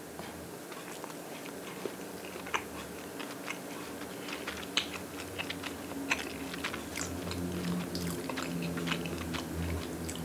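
A person eating an egg salad and avocado sandwich: biting, then chewing, with small wet clicks and crunches.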